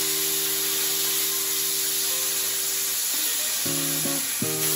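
HZXVOGEN HVM270 plasma cutter torch cutting 3 mm sheet metal: a steady, loud hiss of the plasma arc and compressed air. Background music plays under it.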